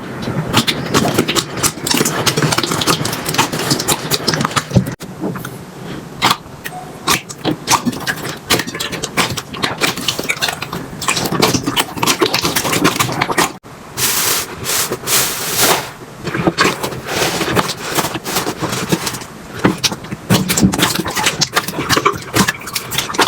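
Slime being worked and squished, making dense crackling and popping clicks. The sound breaks off abruptly twice, about five seconds in and again near fourteen seconds.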